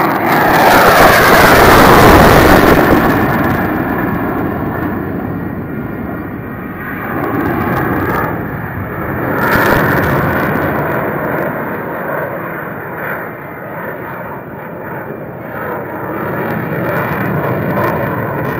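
Fighter jet flying past low overhead: a loud jet roar that peaks in the first few seconds, its pitch falling as the jet goes by. It then carries on as a rumble that swells and fades twice.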